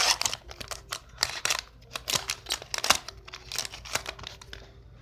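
Foil wrapper of a Pokémon TCG booster pack crinkling and tearing open by hand, then scattered sharp crinkles and clicks as the wrapper and cards are handled, dying down near the end.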